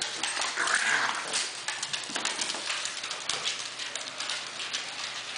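Pugs' claws clicking on a hardwood floor in quick, irregular ticks as they scuffle and trot about, with a short breathy noise about a second in.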